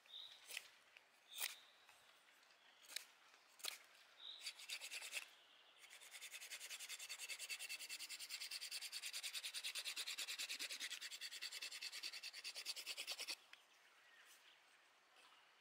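Small fixed-blade knife with an N695 steel blade working a peeled wooden stick: a few separate cuts over the first five seconds, then about seven seconds of rapid, even scraping strokes of the blade along the wood that stop suddenly.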